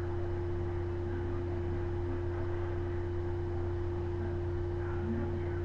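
Steady electrical hum with a constant mid-pitched tone over faint room noise, with no other clear sound.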